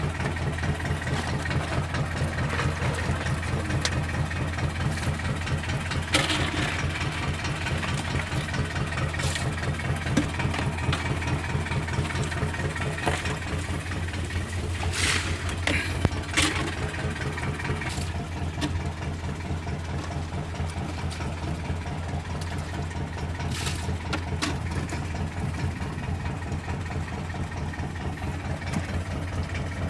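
An engine idling steadily, its low hum pulsing evenly, with a few sharp clicks and knocks on top.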